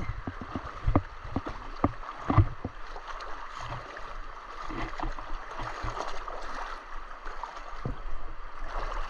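Legs wading through shallow river water, with irregular splashes and sloshes over the steady rush of the flowing river.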